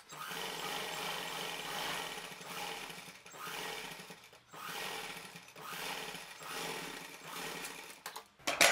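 Sewing machine running, stitching a topstitch through cotton fabric in several runs with brief pauses between them. A few sharp clicks come near the end as it stops.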